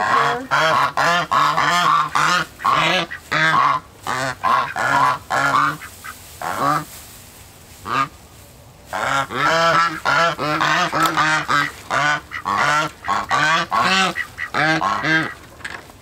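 Domestic white geese honking over and over in quick runs of short calls, with a lull of a couple of seconds about halfway through.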